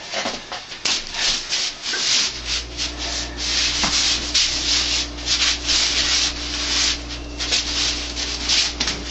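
Forearms and sleeves rubbing, brushing and slapping against each other in quick, uneven strokes as two people roll arms in wing chun sticky hands (chi sao). A low steady hum comes in about two seconds in.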